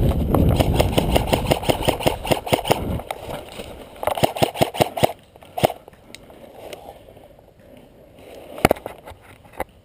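Airsoft rifle firing on full auto: a long burst of rapid shots lasting about three seconds, a shorter burst about four seconds in, then a few single shots.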